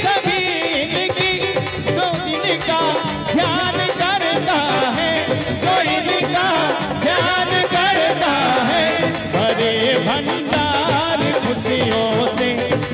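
Live Hindi devotional bhajan music: harmonium, dholak and keyboard accompaniment under a melody line that bends and wavers in pitch, without a break.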